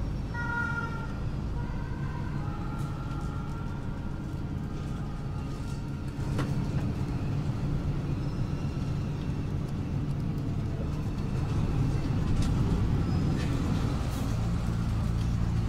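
Inside a moving city bus: engine running under steady road and tyre noise. Near the end the engine settles into a steadier hum as the bus slows for a stop.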